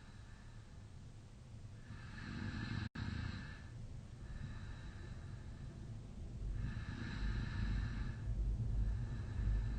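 A man snoring in deep sleep with his mouth slightly open: slow breaths of hissing airflow, three in all, over a low, deep snore that grows louder in the second half.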